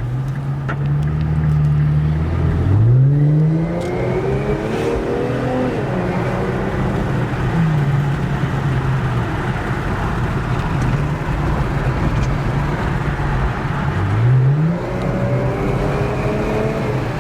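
Infiniti Q50 3.0t's twin-turbo V6 running through a Y-pipe and muffler delete, its note rising as it is revved about three seconds in and again near the end, settling back in between.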